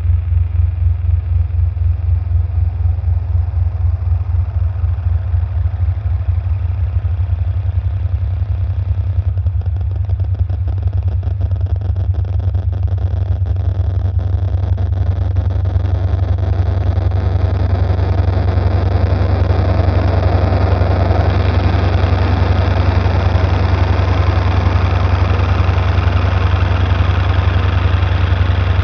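Electronic soundtrack drone: a loud, rapidly pulsing low bass hum, joined about halfway through by a rising wash of hiss and grainy texture higher up.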